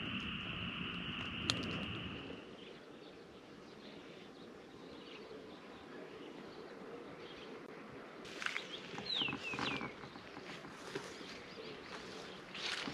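Insects, likely crickets, trilling steadily in a high even band, cutting off abruptly about two seconds in. After that comes faint outdoor background with a few short chirps around nine seconds in, one of them falling in pitch.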